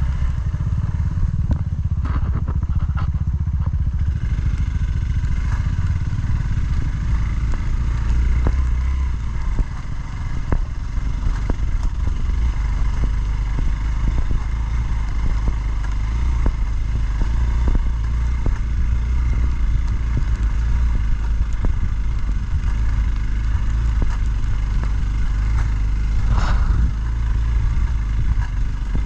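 Motorcycle engine running steadily while riding, with frequent small knocks and rattles and a brief sharp noise about 26 seconds in.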